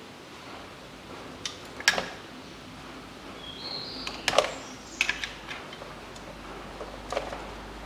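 A screwdriver and plastic wiring-harness connector being worked by hand in a car's engine bay. It gives a few sharp clicks and small knocks: a pair about two seconds in, a loud one a little after four seconds, a quick cluster around five seconds and one more near the end.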